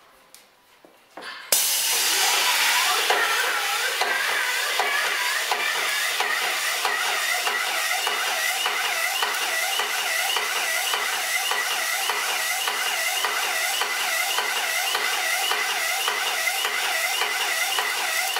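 Airless putty sprayer (Aspro 6000) spraying putty through a 535 tip. The spray starts suddenly about a second and a half in and then holds as a loud, steady hiss, pulsing faintly and evenly with the pump's strokes.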